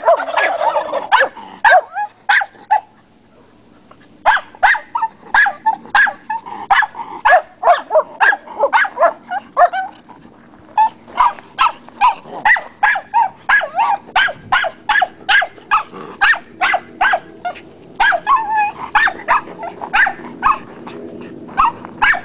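Schnauzers barking and shrieking excitedly in a rapid, nearly unbroken string of sharp, high yelps, several a second. There is a brief lull about three seconds in.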